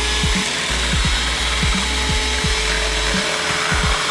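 Kenwood 250 W electric hand mixer running steadily with a constant motor hum, its twin beaters whipping thickened cream in a plastic bowl.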